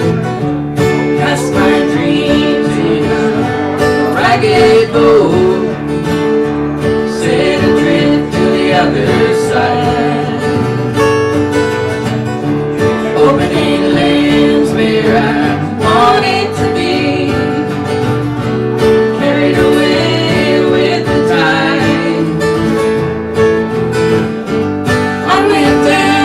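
Live country song with acoustic guitar, playing an instrumental break between sung verses.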